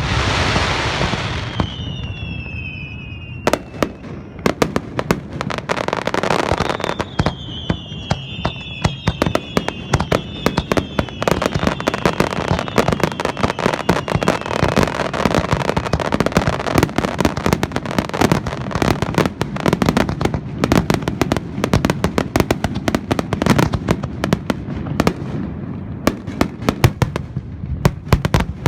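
Fireworks finale barrage: a dense, unbroken run of bangs and crackling. Several whistles falling in pitch sound near the start and again around ten seconds in.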